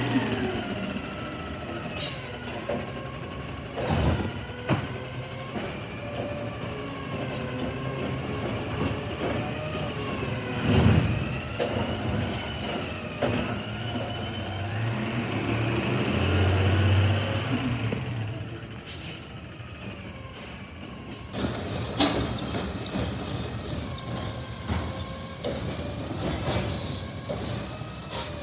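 Heil DuraPack garbage truck's diesel engine revving up and down to drive its hydraulics, with a rising whine about halfway through and several sharp clanks. The truck then moves off down the street.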